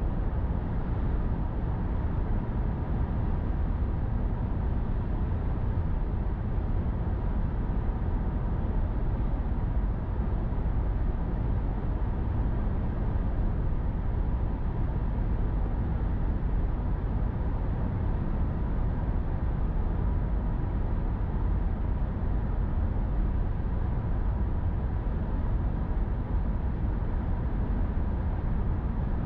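Steady road noise of a car cruising at highway speed: an even rumble of tyres on pavement with wind hiss, unchanging throughout.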